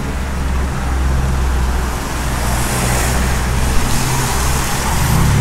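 Road traffic on a wet street: a steady low rumble, with tyre hiss swelling around the middle as a car goes by and an engine drone coming in near the end.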